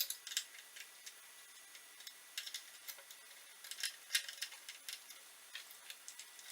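Light, irregular clicks and taps as mains leads are fitted into a power supply's screw terminal block and the terminal screws done up, the sharpest about four seconds in.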